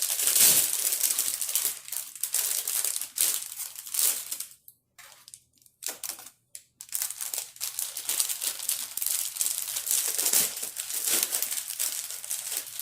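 Plastic parts bags and packaging crinkling and rustling as they are handled, with a short quiet pause about five seconds in.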